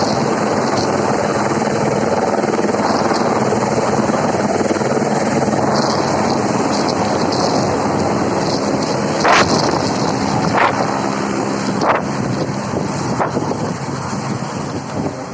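Helicopter rotor and engine running steadily, with a few sharp knocks in the second half and the level easing slightly near the end.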